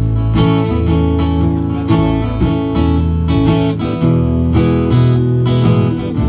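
Acoustic guitar strumming chords, with an electric bass guitar playing low notes along with it; an instrumental passage with no singing.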